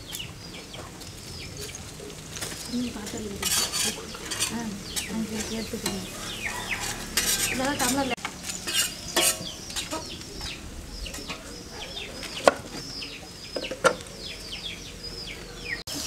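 A metal spatula stirs and scrapes chopped onions, green chillies and fresh curry leaves frying in oil in a large black wok, with a light sizzle and occasional sharp clinks of the spatula against the pan. Chickens cluck and chirp in the background.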